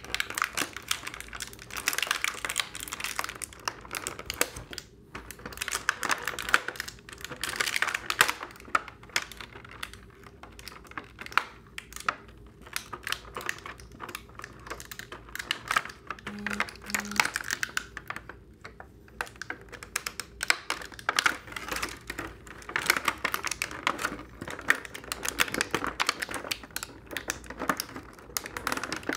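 Plastic toy packaging being handled and opened: a steady, irregular run of crinkling, clicking and tapping. Two short low tones sound close together about halfway through.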